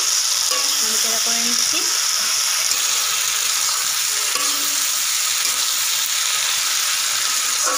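Prawns, potato pieces and spice paste sizzling steadily in hot oil in an aluminium kadai while a spatula stirs and scrapes through them, as the masala and prawns are sautéed dry.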